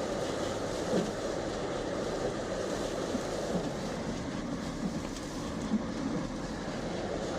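Steady rumble of a 2014 Jeep Grand Cherokee driving on a snow-covered road, heard from inside the cabin: Cooper tyres rolling over snow, with small irregular knocks.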